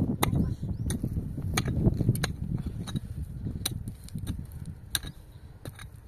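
Sharp knocks or clicks at irregular intervals, roughly one a second, over a low noise that fades after the first two or three seconds.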